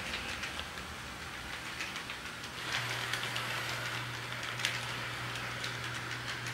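HO scale model train rolling along the track: a steady running rattle with scattered light clicks from the wheels over the rail joints. A steady low hum joins about three seconds in.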